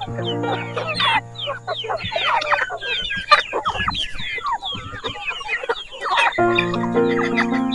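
A flock of chickens clucking and calling all around, many short overlapping clucks, over background music whose held notes grow louder from about six seconds in.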